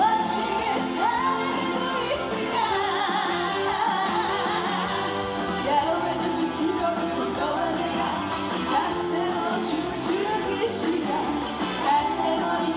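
Trot song performed live: a woman singing over a full backing track, her voice sliding between notes with a wavering vibrato.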